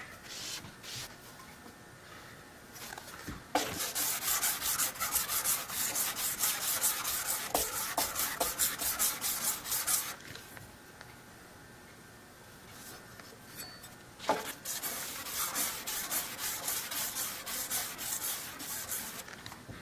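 Steel cabinet scraper blade rubbed rapidly back and forth on abrasive paper, in two long runs of quick, even strokes, honing its edges smooth.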